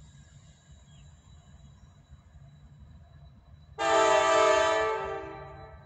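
CSX freight locomotive's air horn sounding one blast of several notes at once, starting suddenly about four seconds in and fading away over the next two seconds, over a low steady rumble.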